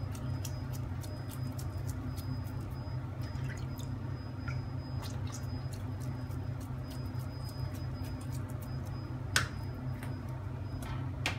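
Wet hands handling minced lamb, giving small squishes and scattered clicks, with one sharper click about nine seconds in. A steady low hum runs underneath.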